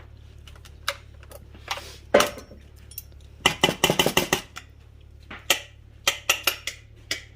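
Spoon clinking and scraping against a dish while scooping a soft cream cheese and butter mixture. There are scattered clicks, a quick run of clinks about three and a half seconds in, then a few more.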